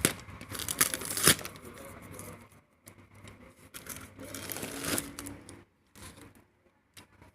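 A parcel's wrapping being torn open and crinkled by hand, with sharp rips just at the start and about a second in. The rustling then thins out to softer crinkles and small clicks.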